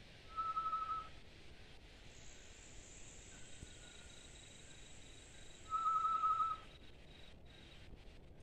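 A hunter whistling an imitation of the macuco (solitary tinamou) call to lure the bird: two short, quavering whistles on one pitch, about five seconds apart.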